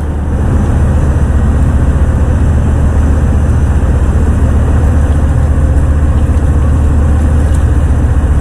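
Ship's engine-room machinery running: a loud, steady low drone with a fast, even throb.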